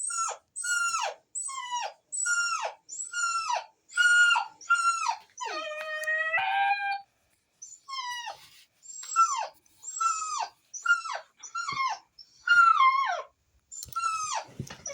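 Puppy whining in a rapid string of short, high-pitched cries, about two a second, each falling in pitch, with one longer, steadier howl-like cry about six seconds in.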